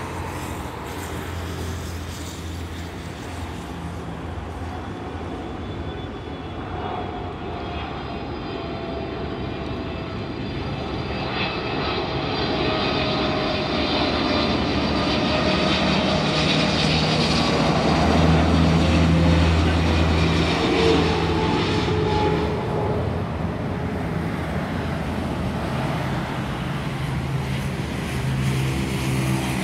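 Boeing 777-300ER's two GE90-115B turbofans on landing approach, passing low overhead: a jet whine and rumble that grows, is loudest about two-thirds of the way through, and then eases off, its tones sliding down in pitch as it passes.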